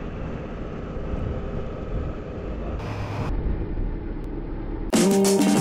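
Steady low rumble of wind and engine while riding a Suzuki SV650 V-twin motorcycle, then loud electronic music cuts in abruptly near the end.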